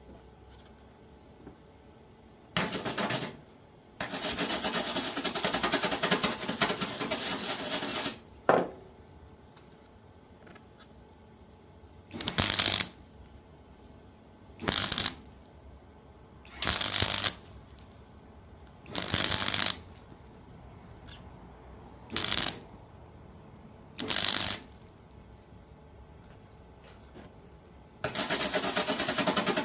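Gasless (flux-core) MIG welding arc crackling in a series of tack welds on cracked sheet steel: a short burst, a run of about four seconds, a single sharp crack, then six short tacks of under a second each, and a longer weld starting near the end.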